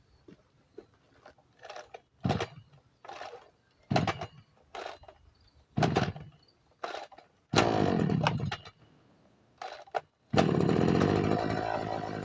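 Maruyama MBS261E brush cutter's small two-stroke engine being pull-started: a series of short bursts about a second apart as it fires briefly and dies, one longer sputter, then about ten seconds in it catches and keeps running steadily.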